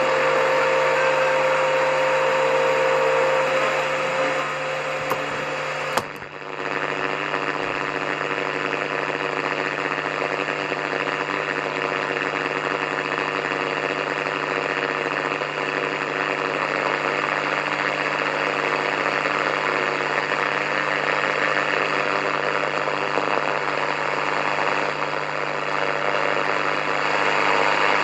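Radio static while tuning between stations: a steady hiss with a held whistle-like tone for the first six seconds, a sharp click and brief dropout about six seconds in, then steady static with faint humming tones.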